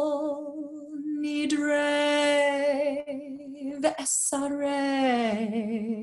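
A woman cantor singing solo and unaccompanied, a slow, chant-like phrase of a traditional High Holiday misinai melody. She holds long notes with vibrato, breaks briefly about four seconds in, then steps down to a lower held note.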